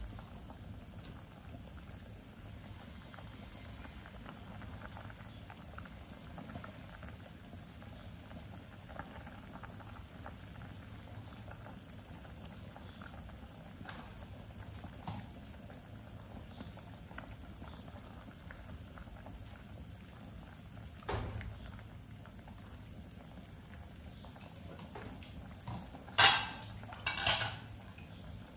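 A pot of chicken sour soup boiling steadily, with a continuous low bubbling. A dull knock comes about two-thirds of the way through, and two short, louder noises come near the end.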